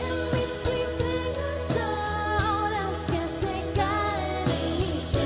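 Live rock band playing: drum kit strokes and electric bass and guitar under a voice singing a wavering melody that bends in pitch about two seconds in and again near four seconds.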